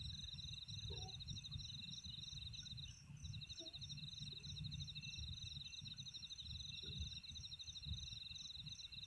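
Night insects, crickets, chirping faintly: a high pulsing trill that breaks off briefly about three seconds in and starts again, over a faster repeated chirp, with a low rumble underneath.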